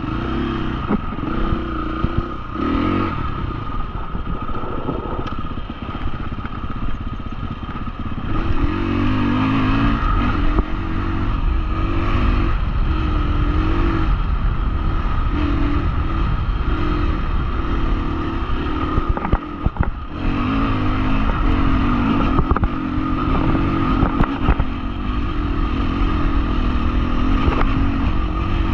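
A 2021 Husqvarna FE350's single-cylinder four-stroke engine running hard while ridden off-road, its note rising and falling again and again as the throttle opens and closes and it shifts through the gears. Short knocks from the bike over rough ground are scattered through it, and the engine briefly drops off about two-thirds of the way through.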